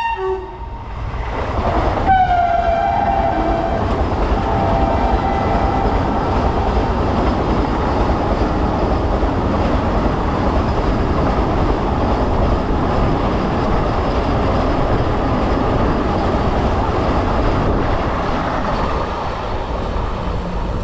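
Vande Bharat Express electric trainset running through at speed on the adjacent track. Its horn sounds at the start and again about two seconds in, dropping slightly in pitch, over a loud steady rush of wheels on rail with some clickety-clack that eases a little near the end.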